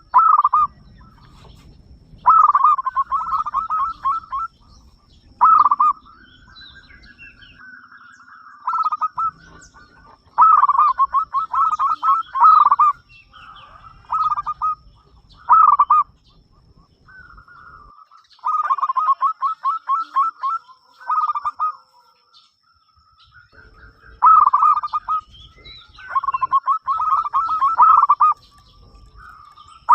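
Zebra dove (perkutut) cooing in repeated phrases of rapid, rattling staccato notes, one phrase every couple of seconds with short pauses between.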